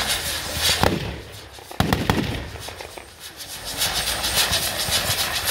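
Firecrackers going off: scattered sharp bangs with a louder, booming one about two seconds in, then a dense string of rapid crackling pops for the last couple of seconds.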